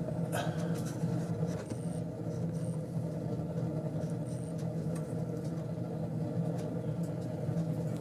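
Homemade rocket stove wood pellet heater burning, with a steady low hum.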